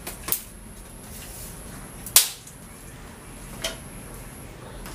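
Dry firewood sticks snapped by hand: three sharp cracks, the loudest about two seconds in.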